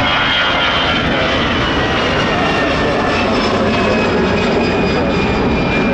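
Jet airliner passing close, its engines loud and steady, with whining tones that drift slowly down in pitch.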